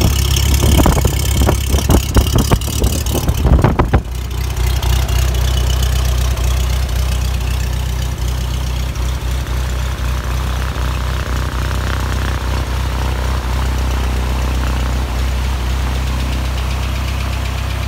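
Jabiru J170's four-cylinder Jabiru 2200 engine, just started on choke, running unevenly for about four seconds. It then settles into a steady idle with the propeller turning.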